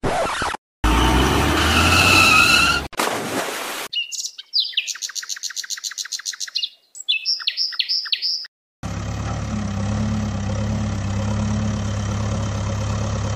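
A steady engine-idling sound from about nine seconds in to the end, which fits the toy Volvo excavator's engine sound. Before it comes a run of rapid high chirps, about eight a second, and near the start a brief engine-like sound with rising tones.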